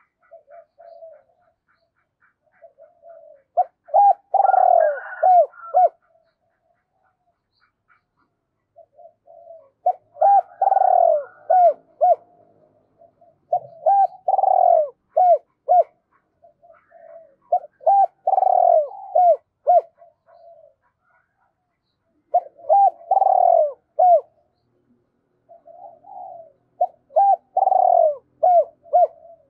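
Spotted dove cooing: a phrase of a soft lead-in followed by several loud coos, repeated about every four to five seconds, six times in all.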